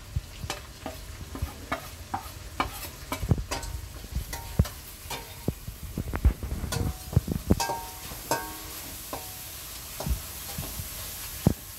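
Steel spatula scraping and clinking against a stainless-steel kadhai while masala powders are stirred into tomato masala frying in ghee, over a soft sizzle. The scrapes and taps come irregularly, several a second, and some ring briefly like struck metal.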